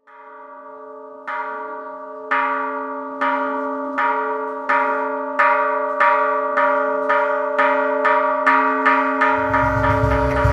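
A temple bell struck again and again, the strikes coming faster and faster, each ringing on into the next. Near the end a low, deep sound comes in underneath.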